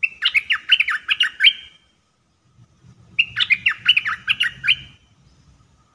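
A caged decoy bulbul (the dok taeng, Malay merbah lekir) singing two short phrases about a second and a half apart. Each phrase is a quick run of six or seven sharp notes.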